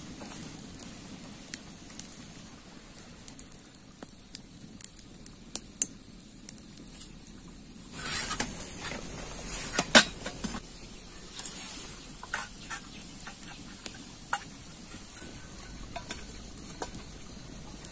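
Small wood fire crackling with scattered pops, mixed with the knocks and clatter of a metal cooking pot and firewood being handled. A sharp knock stands out about ten seconds in.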